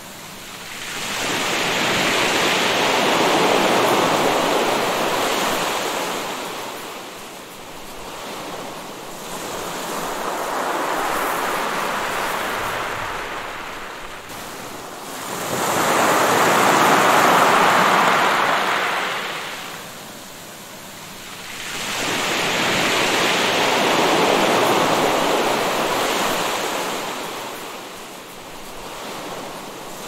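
Ocean surf: a rushing wash of waves that swells and fades four times, about every six to seven seconds.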